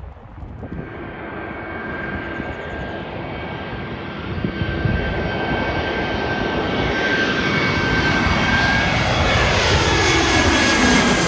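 Airliner jet engines growing steadily louder as the aircraft approaches and passes close, with a high steady whine over the rushing noise and falling sweeping tones near the end.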